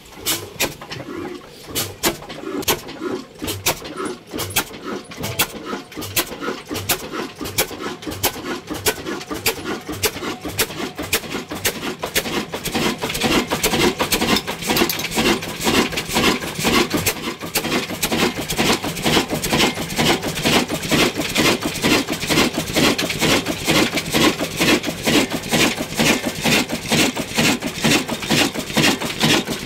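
Old Ruston Hornsby stationary diesel engine running with a steady, rhythmic knocking beat. The beat grows louder and more even about twelve seconds in.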